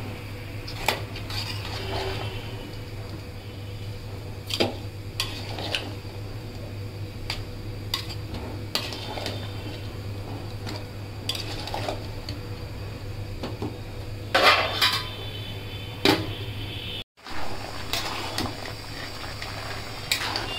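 A metal spatula scraping and knocking against an aluminium pot while bottle gourd pieces are stirred, in irregular strokes over a steady low hum. The sound cuts out for a moment about three-quarters of the way through.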